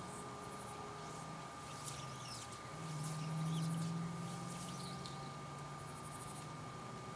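Faint creek-side ambience: short high insect trills and small bird chirps over a steady thin whine, with a low hum swelling to its loudest around three to four seconds in.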